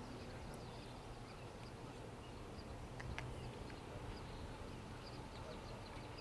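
Faint, steady low rumble of the approaching GE CW44AH freight diesel locomotive, with birds chirping faintly over it and a single click about three seconds in.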